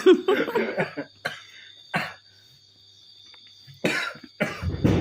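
A man in a coughing fit brought on by laughing: a fast run of harsh coughs over the first second, a couple of single coughs, a short pause, then coughing again near the end.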